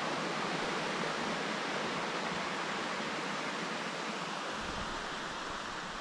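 Hungarian Falls, a tall waterfall, rushing steadily, its sound easing slightly toward the end.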